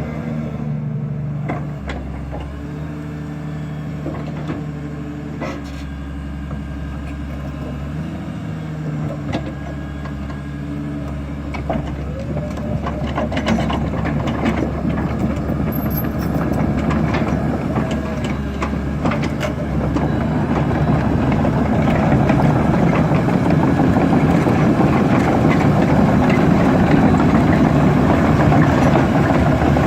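Caterpillar 320D hydraulic excavator's diesel engine running steadily, then growing louder and rougher partway through as the machine works, with scattered short knocks.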